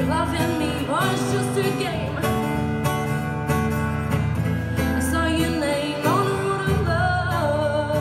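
Acoustic guitar strummed under a woman's singing voice. Two sung phrases slide up in pitch, one near the start and one from about six seconds in, and the second ends on a wavering held note.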